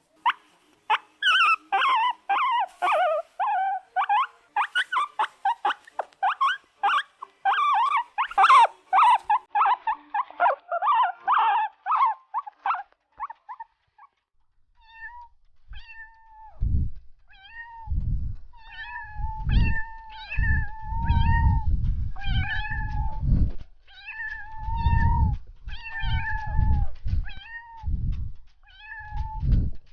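Cats meowing: for about the first half a rapid, overlapping run of short mews, then after a brief pause a series of repeated, steadier meows with a low rumbling noise underneath.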